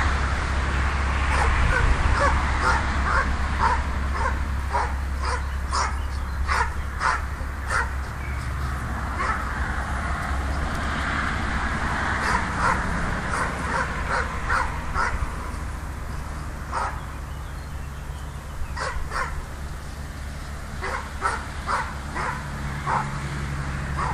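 A dog barking in quick runs of short sharp barks, several a second, with a pause a little past the middle; it is baying at a wild boar. A steady low rumble runs underneath.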